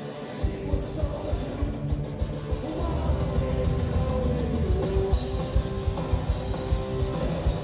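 Punk rock band playing live: electric guitar, then drums and bass come in hard about half a second in and drive on with a fast beat, with a voice singing.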